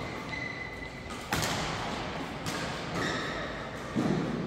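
Badminton hall sounds between rallies: a sharp smack of racket on shuttlecock about a second in, fainter hits later, and a dull thud near the end, with thin squeaks of shoes on the court floor.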